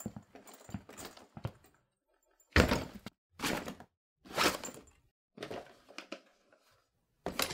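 Metal hand tools clanking as they are dug out of a canvas tool bag. Light rustling and small clicks come first, then a run of heavy clanks about a second apart, the first of them the loudest.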